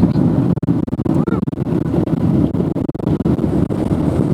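Wind buffeting the camera microphone: a loud, choppy low rumble that keeps cutting in and out with the gusts.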